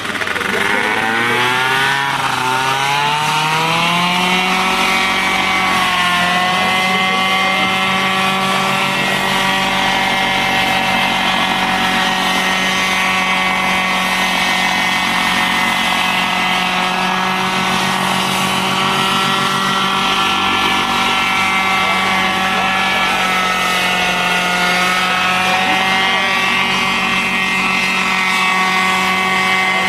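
Small high-revving engine of a homemade coaxial personal helicopter, with its counter-rotating rotors, revving up over the first few seconds and then running at a steady high pitch as the machine lifts off and flies.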